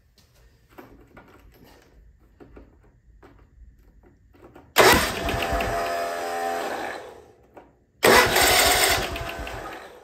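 John Deere LT180 riding mower's 17 hp V-twin engine being cranked over by its electric starter in two bursts of about two seconds each, with the fuel line disconnected at the carburetor to check fuel delivery from the fuel pump.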